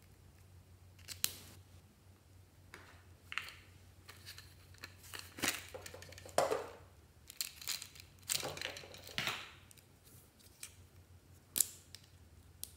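Plastic felt-tip markers clicking and rattling against each other and a plastic pen holder as they are handled and pulled out. The sound is a series of short, separate clicks and brief rustles, busiest in the middle.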